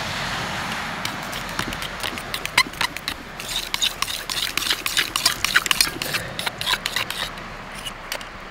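Red marinade being stirred in a stainless steel bowl: a utensil scraping and clicking against the metal, the quick clicks coming thickest in the middle.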